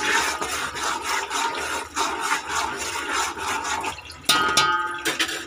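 Watery green masala paste, rinsed out of a bowl, sizzling and spattering in hot oil in a large cooking pot. A short squeaky scrape comes a little after four seconds in.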